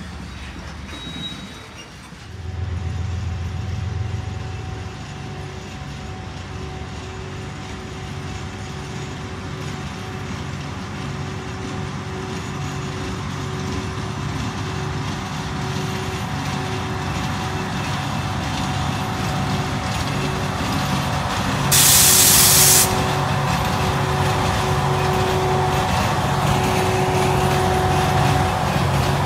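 Diesel freight locomotive running and slowly growing louder: a steady hum over a low, evenly pulsing throb that comes in about two seconds in. About two-thirds of the way through, a sharp burst of air hiss lasts about a second.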